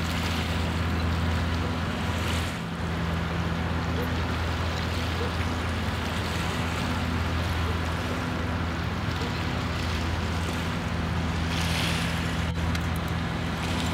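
A steady low engine drone with an even wash of wind and open-air noise over it.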